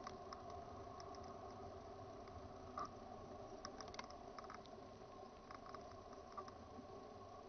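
Weight-shift microlight trike's engine droning steadily in flight, with wind crackling on the microphone in scattered short clicks.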